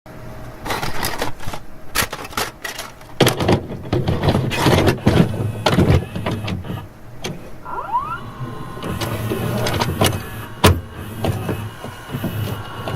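A small motorised mechanism whirring, with many clicks and clunks and a short rising whine about eight seconds in.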